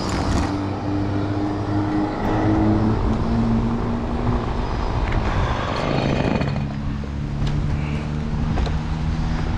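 Stihl chainsaw idling between cuts, a steady two-stroke drone whose pitch drops and settles lower about six seconds in.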